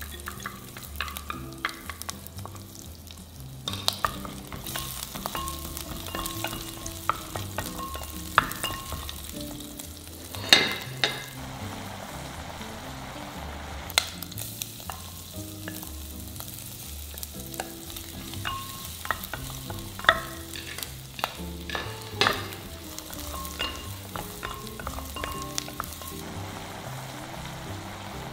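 Dried shrimp sizzling in hot oil in a clay pot, with clicks and scrapes of a wooden spatula stirring against the pot and a few louder knocks.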